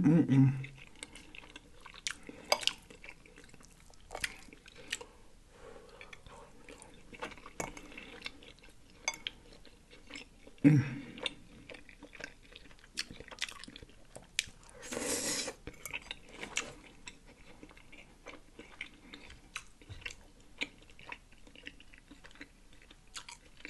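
Close-miked chewing and mouth sounds of someone eating pot roast, with scattered clicks of a metal fork against a ceramic bowl. A short hum of the voice comes about eleven seconds in, and a brief breathy noise around fifteen seconds.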